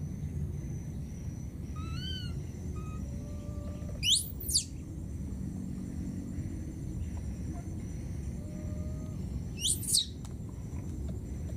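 Infant macaque crying for its mother: two brief, shrill, high-pitched squeals that rise and fall steeply, one about four seconds in and one near the end, with a few fainter rising-falling calls before the first.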